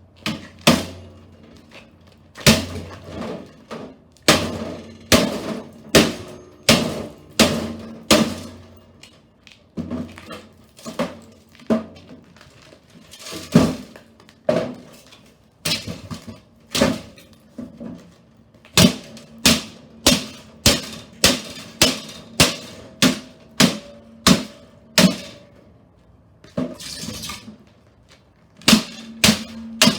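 A toaster oven being beaten: repeated heavy blows on its metal body, each with a short ringing tail. The blows are irregular at first, then come about two a second for several seconds in the second half.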